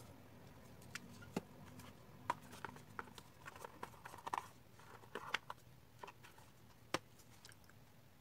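Scattered light clicks and taps of a plastic phone charger and cable being handled and set down in a white cardboard box tray, with some soft rustling; the sharpest taps come about two, five and seven seconds in.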